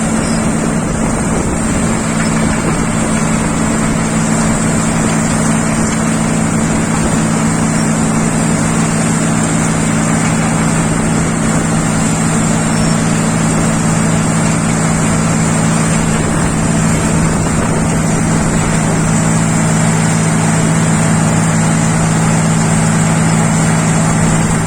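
A motor running steadily: a constant low hum with a noisy rush over it, unchanging throughout.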